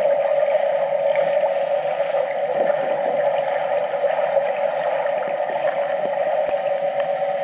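Underwater ambience in a swimming pool, recorded with the microphone below the surface: a constant even hum, with faint bubbling from divers' exhaled air.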